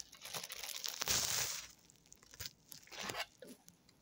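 Plastic bag and clear plastic takeaway food container crinkling as the food is unpacked. The loudest crackling comes about a second in, followed by a few light clicks and taps.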